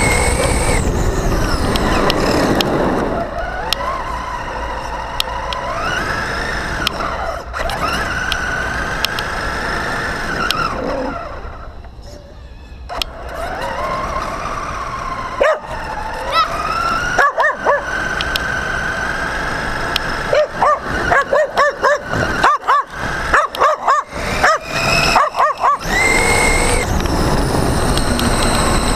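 Brushless electric RC car's motor whining up and down with the throttle, heard from on board. Past halfway a dog barks, a few barks first and then a quick, sharp run of them for several seconds, before the motor whine carries on alone near the end.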